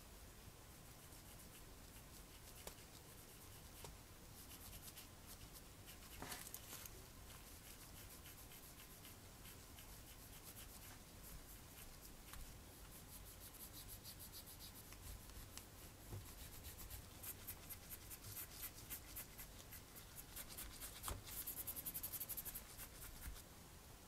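Faint scratchy brushing: a small makeup brush rubbed in an eyeshadow pan and stroked over a miniature model car seat in quick repeated strokes, which come faster and louder in the second half.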